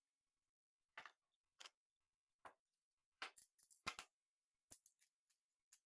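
Plastic magnetic building tiles clicking as they are picked up, set down and snapped together edge to edge: about eight light, sharp clacks at irregular intervals.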